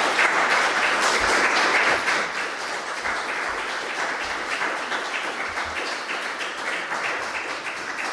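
Audience applauding, dense clapping that is loudest in the first couple of seconds and then carries on slightly quieter.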